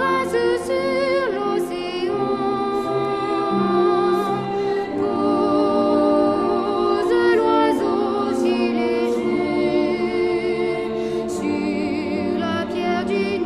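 Background music: voices singing held notes with vibrato, choir-like.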